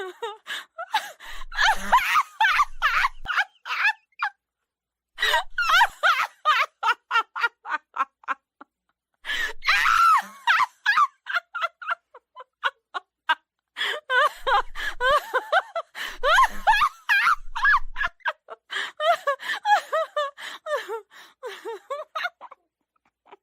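A young girl laughing in several bursts of rapid, high-pitched giggles and gasping breaths, with short pauses between bouts.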